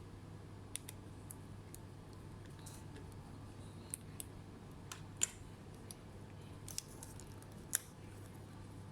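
Sparse light clicks and ticks of small hard parts being handled, with two sharper clicks in the second half, over a steady low hum.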